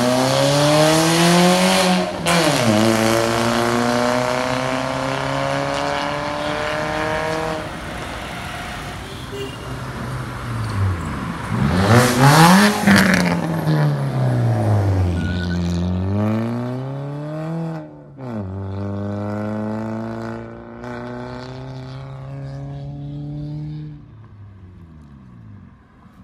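Car engine through an aftermarket valvetronic exhaust, its resonator and rear muffler replaced with straight pipe: the revs climb and drop again and again, with the sharpest and loudest rise about halfway through. The sound eases off and fades near the end.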